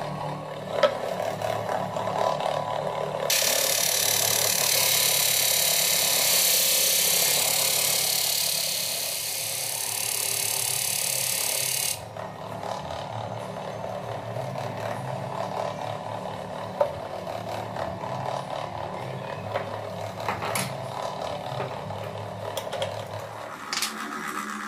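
Disc sander driven by an old electric fan motor, running with a steady hum. From about three seconds in to about twelve seconds in, a loud steady hiss runs over it, and a couple of single knocks come about one and seventeen seconds in.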